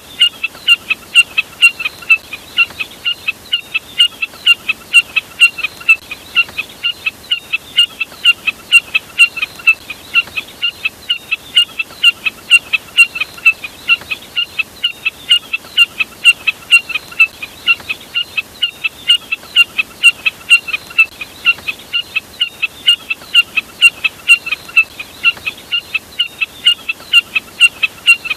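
Jack snipe call: a fast, even series of short, sharp notes, about five a second, repeated without a break.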